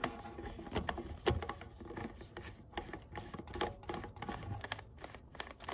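Super-Takumar lens being screwed onto a Pentax Spotmatic's screw mount: faint, irregular small clicks and rubbing of metal threads and fingers on the lens barrel and camera body.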